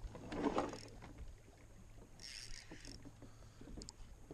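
Choppy water slapping against a kayak hull, over a steady low hum. There is a louder burst of noise about half a second in and a short high hiss about two seconds in.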